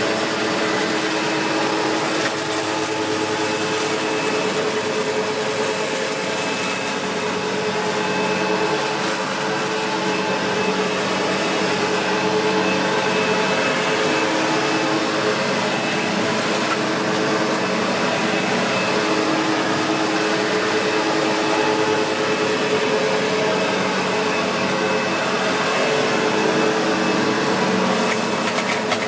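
Upright vacuum cleaner running steadily over carpet, its motor holding an even pitch.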